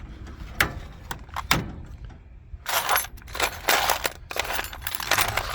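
Rummaging through loose small metal parts in an old steel Craftsman tool box drawer: a couple of sharp clinks, then a few seconds of rattling and scraping as the bits are stirred and pulled out.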